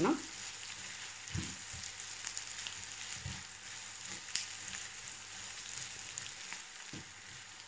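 Diced onion, carrot and green beans sizzling steadily in oil and butter in a nonstick frying pan, with a few knocks of a spatula stirring them.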